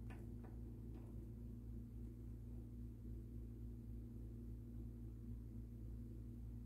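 Quiet room tone: a steady low hum, with a few faint ticks in the first second.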